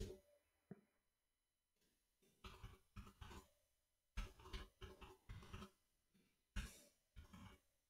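Faint computer keyboard typing: a few scattered keystrokes, then quick runs of key presses from about two and a half seconds in.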